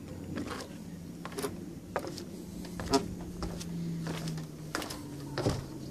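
Footsteps and handling knocks on a dirt and stone path, scattered and irregular, over a steady low mechanical hum that drops slightly in pitch a little past the middle.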